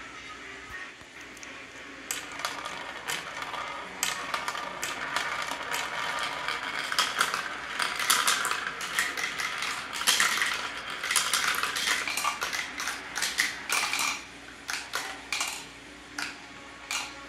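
Marbles rolling and clattering through a plastic marble run, circling around a plastic funnel bowl and knocking through the tubes and tracks. The clicks and rattles start about two seconds in, come thickest in the middle, and thin out to a few separate clicks near the end.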